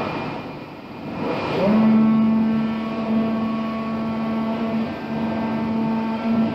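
iEcho PK1209 Pro Max cutting plotter working: a rushing mechanical noise as the head moves, then, about a second and a half in, a whine rises quickly and settles into a steady hum with overtones as the oscillating knife runs, cutting 5 mm PE foam.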